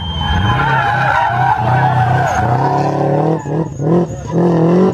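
Blue Subaru Impreza's flat-four engine pulling hard through a bend on a time-attack run, with tyres squealing. Near the end the engine note rises in pitch as the car accelerates out, breaking off briefly twice.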